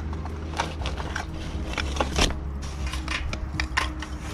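Lumps of charcoal being dropped by hand into a metal chimney starter: irregular clinks and knocks, the loudest about two seconds in.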